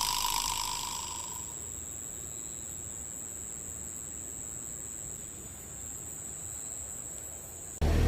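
Steady high-pitched insect trill, like a cricket, held on one pitch over faint background noise, cutting off abruptly near the end. A fading whoosh with a soft tone dies away in the first second.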